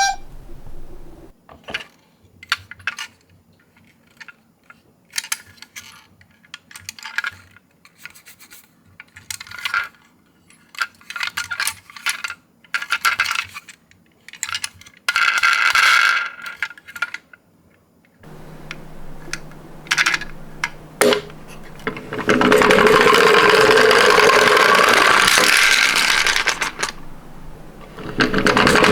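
Small plastic-and-metal toy ambulance minicar being handled: scattered clicks, taps and rattles of its parts. In the last third comes a loud, steady noise.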